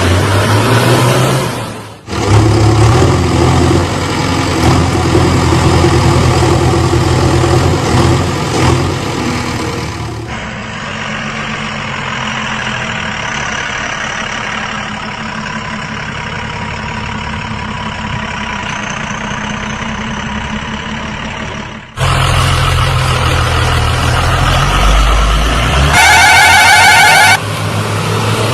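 Heavy vehicle engine sounds running steadily, cut together in several abrupt segments, with a short horn blast near the end.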